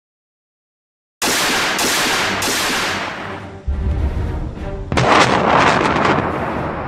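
Dead silence for just over a second, then large explosions: a sudden loud blast with a few sharp cracks and a low rumble, and a second sharp blast about five seconds in.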